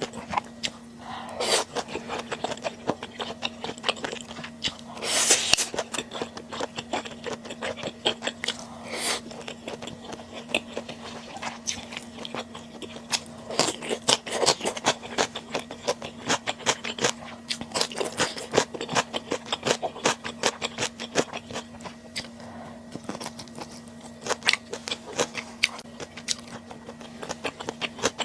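Close-miked eating sounds: chewing and biting on stir-fried webfoot octopus, a dense run of quick wet clicks and crunches with a few louder, longer mouthfuls. A steady low hum runs underneath.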